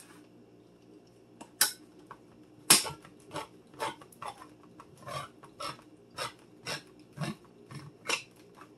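Handheld manual can opener cutting around the lid of a metal can, clicking with each turn of its key. There are two louder clicks in the first three seconds, then regular clicking at about two a second.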